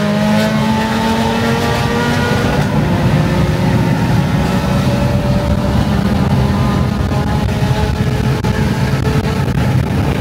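Car engine pulling steadily under power, loud, its pitch climbing slowly over the first few seconds and then holding as a steady drone.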